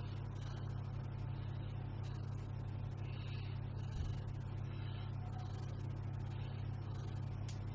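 A steady low hum from a running motor or fan, with a soft knock about four seconds in.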